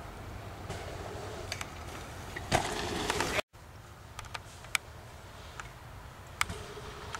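BMX bikes on dirt jumps: a steady rush of tyres and air, a loud landing thump about two and a half seconds in, and scattered sharp clicks and rattles from the bike. The sound cuts out for a moment a little after three seconds.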